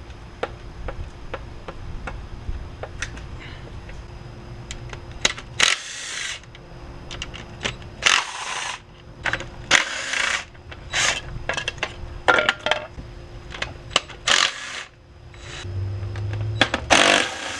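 Metal hand tools clicking and clinking against bolts and brackets in an engine bay, in a string of short spells with sharp clicks between them.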